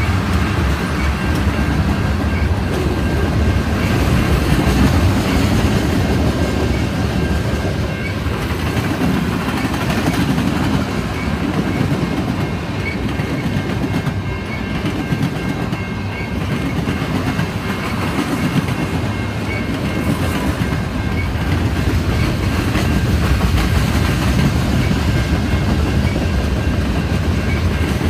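Freight train cars rolling steadily past at a level crossing. Tank cars give way to loaded centerbeam lumber flatcars, with a continuous rumble of steel wheels on the rails.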